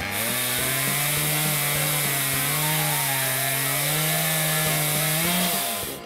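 Chainsaw ripping lengthwise through a log in a home-made milling jig, running steadily at full speed under load, its pitch wavering slightly with the cut. The pitch sags near the end before the sound cuts off.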